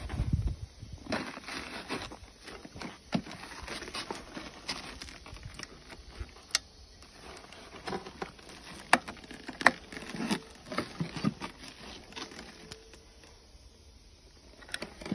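Irregular handling noise: rustling and light taps, with a few sharp clicks, as a gloved hand works the control panel of a battery-powered drum machine. The machine's motor is not running.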